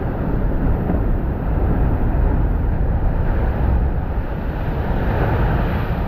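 Large ocean waves crashing against a lava-rock sea cliff: a continuous deep rumble and wash of water, with a louder rush of surf about five seconds in.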